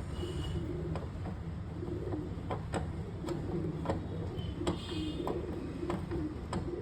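Pigeons cooing in repeated low calls, with scattered sharp clicks and taps alongside.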